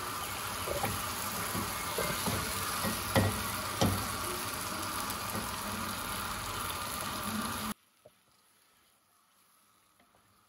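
Hot tomato-onion masala sizzling in a pot as marinated mutton is scraped in from a glass bowl with a wooden spatula, with a few sharp knocks of the spatula. The sizzling cuts off suddenly about three quarters of the way through, leaving near silence.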